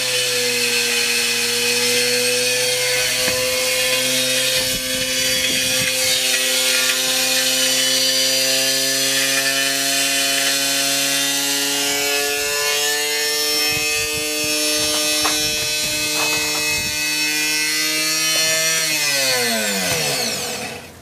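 Whirlpool washing machine being run to destruction on a high-speed spin: a steady, slowly rising whine from motor and drum, with rattling knocks. Near the end it winds down in a steeply falling whine.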